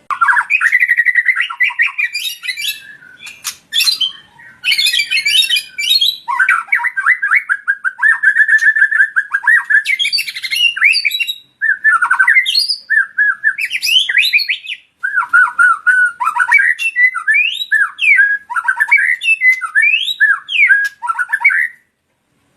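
Male murai batu (white-rumped shama) singing a long, varied song of whistled phrases mixed with rapid harsh notes, with two brief pauses. It stops shortly before the end.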